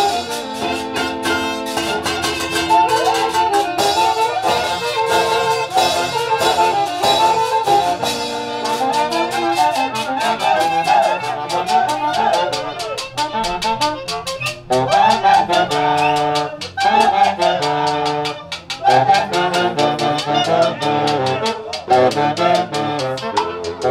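Orchestra playing a festive dance tune led by brass and saxophones over a steady beat.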